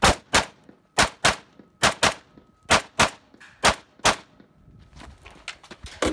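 AK-pattern rifle fired semi-automatically, ten sharp shots in five quick pairs, emptying a 10-round magazine. A duller knock follows near the end.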